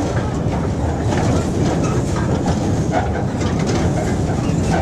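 Steady rumble of a moving steam train heard from on board, with irregular clatter and knocks of the wheels running over the rail track.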